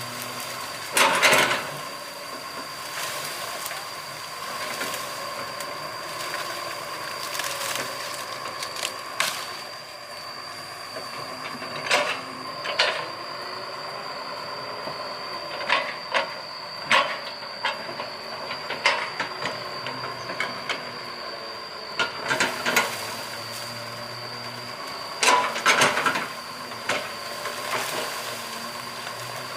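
Hydraulic excavator working, with a steady high-pitched whine and a run of sharp knocks and clanks at irregular intervals; the loudest knocks come about a second in and again near the end.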